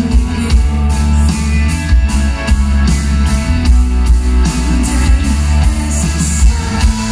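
A live pop-rock band playing loud on an open-air stage, with electric guitars, bass and drums, heard from within the audience.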